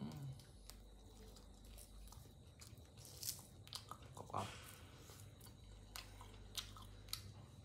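Close-up chewing of crispy fried catfish: faint, irregular crunches and mouth sounds, the loudest crunches about three and four and a half seconds in.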